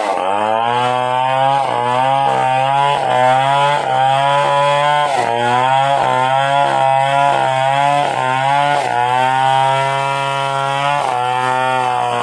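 Stihl 070 two-stroke chainsaw running near full throttle while ripping a coconut trunk lengthwise. Its engine note drops under load and climbs back, about seven times.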